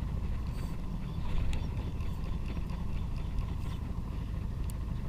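Fishing boat's engine running, a steady low rumble, with a few light clicks and knocks over it.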